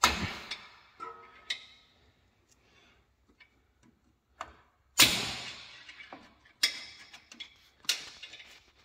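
Hammer blows on a screwdriver held against the ear of a steering-rack boot clamp, knocking the clamp loose. Sharp taps with a short ring after each: three in the first second and a half, a pause of about two seconds, then a further run of blows, spaced a second or so apart.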